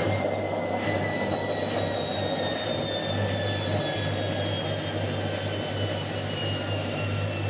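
Washing machine on a 1200 rpm spin cycle: a steady low hum and rushing noise under a high motor whine that slowly drops in pitch as the drum slows.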